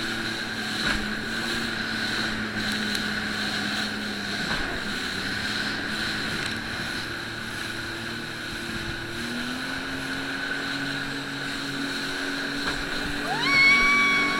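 Jet ski engine running steadily under way, its pitch rising a little about two-thirds through. Near the end a brief high-pitched call cuts in.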